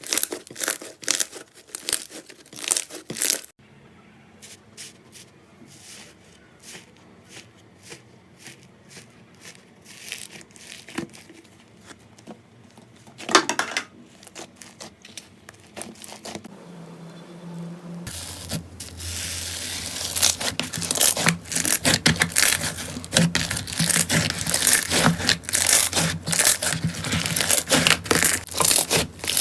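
Slime being handled, giving crackling, popping and clicking sounds: dense crackling at first, then sparse single clicks for a while, then dense continuous crackling again for the last stretch.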